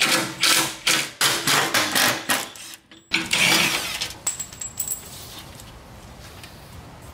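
Cordless power tool run in short bursts, about three a second, backing out the bolts of a car's aluminium skid plate. After a short pause comes a longer, louder metallic clatter as the plate comes loose, and then a brief high ring.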